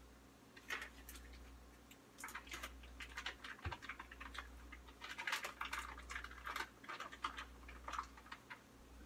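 Light rustling and quick, irregular tapping of hands working at a kitchen counter, over a low steady hum.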